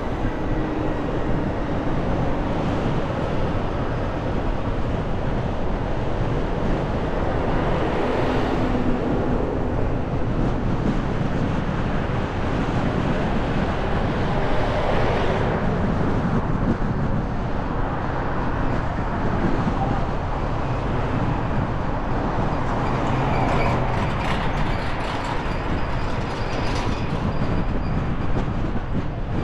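Road noise from a car driving slowly on a city street: a steady rumble of tyres and engine, with the traffic around it swelling louder a few times as vehicles pass.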